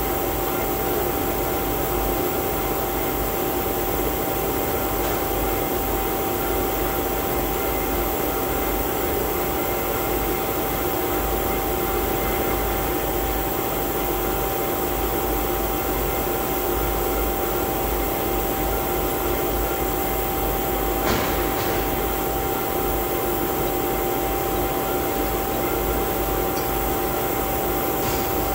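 Large DC motor running steadily: an even mechanical hum with a constant high whine, and a couple of sharp clicks about three-quarters of the way through.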